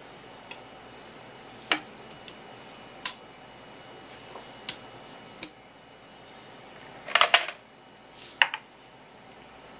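Scattered sharp taps and clicks as a raw isaki (grunt) fillet is handled on a wooden cutting board, the loudest a quick run of taps about seven seconds in.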